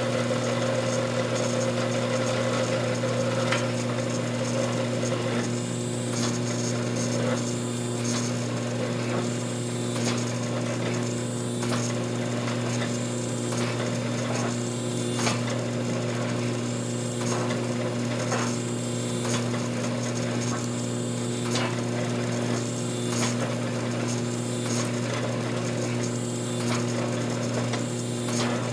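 Hydraulic forging press running: its electric motor and pump give a steady hum throughout. From about five seconds in, a repeating swell with sharp clicks comes roughly every second and a half to two seconds as the ram cycles, pressing a hot steel ingot.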